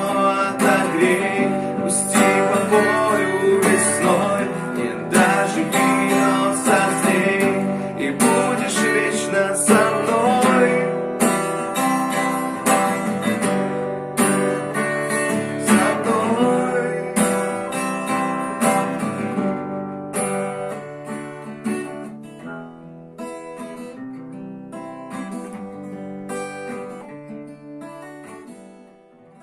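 Acoustic guitar strumming the chords of the song's closing instrumental, growing steadily quieter over the last ten seconds and fading out at the end.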